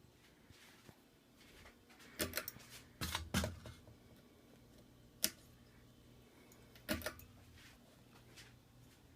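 Low steady hum of a CEI Builder ceiling fan's motor, broken by a handful of irregular sharp clicks and knocks, loudest about 3 seconds in.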